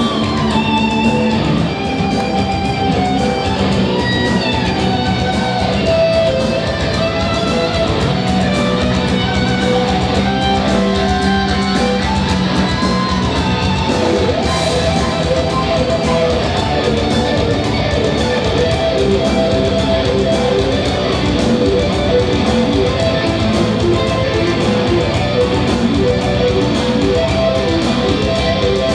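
Band music led by a Stratocaster-style electric guitar playing sustained melodic lead lines over a dense, steady backing.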